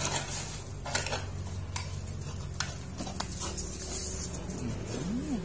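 Scattered clinks and knocks of an aluminium drink can mouthed and carried by a dog, over a steady low hum. Near the end the dog gives a short low whine that rises and falls.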